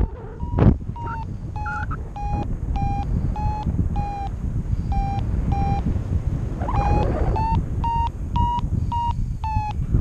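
Paragliding variometer beeping in short, evenly spaced tones, about two a second, with two brief pauses and the pitch a little higher in the last few seconds: the glider is climbing in lift, a little faster near the end. Steady wind rushing over the microphone underneath, and a short knock about half a second in.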